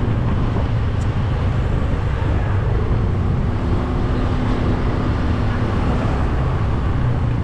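Motor scooter running while being ridden: a steady engine note under road noise, with wind rumbling on the microphone.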